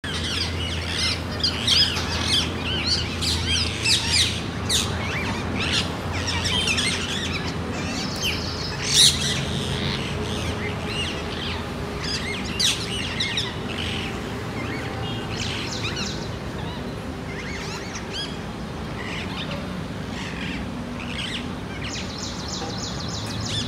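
A flock of rose-ringed parakeets calling: a jumble of many short, shrill calls, busiest in the first half and thinning out later. A low steady hum lies underneath through the first half.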